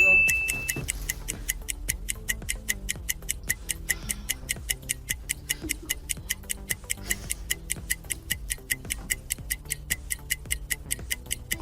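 A short high beep, then fast even ticking, about five ticks a second, over background music with low held notes: a timer-style ticking effect running during a timed round.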